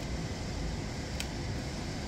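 Steady machinery and ventilation noise from a welding shop, an even rushing hum, with one short click about a second in.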